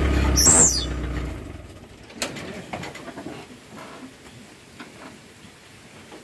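Hauling truck's engine running, dying away about a second in. A short, high, falling whistle sounds just before it fades. Then come scattered small clicks and clinks of wire and the steel tyre chain being handled as the chain is tied onto the wheel.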